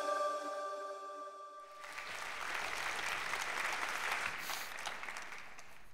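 The tail of an electronic intro tune, its held tones fading out over the first two seconds, then audience applause that begins about two seconds in and dies away near the end.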